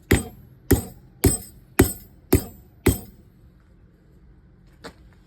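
Blacksmith's hammer striking the forged steel hook on the anvil six times, about two blows a second, each with a bright metallic ring, flattening the piece. A faint single tap follows near the end.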